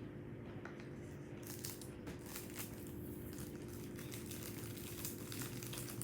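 Crinkly crackling and light clicks from handling the yogurt cup and spoon, starting about a second and a half in, over a steady low hum.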